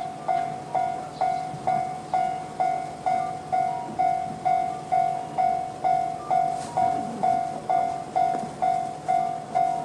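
Japanese railway level-crossing alarm sounding the electronic JR-standard warning tone. It is a bell-like ding that repeats about twice a second, each stroke fading quickly.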